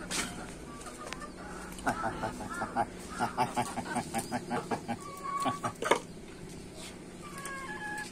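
Domestic chickens clucking: a run of short clucks, several a second, through the middle, with a few higher drawn-out calls near the end.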